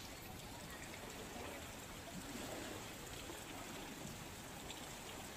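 Faint, steady rush of floodwater, with no distinct splashes or knocks.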